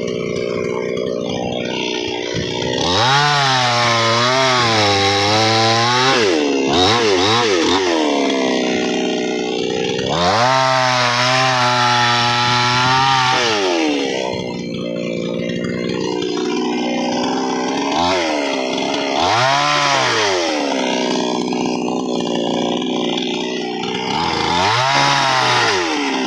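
Chainsaw engine running and revving up repeatedly, holding high speed for a few seconds at a time and dropping back to a lower speed in between, several times.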